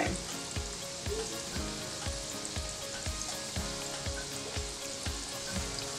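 Saltfish fritters deep-frying in hot vegetable oil, a steady sizzle of oil bubbling around the batter.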